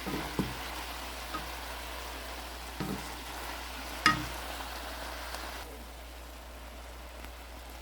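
Sautéed ground chicken and cabbage sizzling in a cooking pot, with a few sharp knocks of a utensil against the pot, the loudest about four seconds in. The sizzling drops quieter about two-thirds of the way through.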